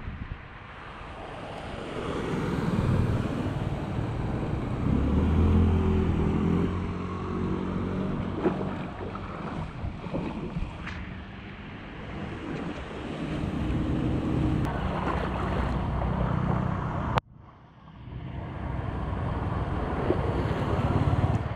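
Wind rushing on the microphone over splashing floodwater on a street, with a motorbike engine passing through the water twice. The sound cuts out abruptly about three-quarters of the way through, then the wind and water noise comes back.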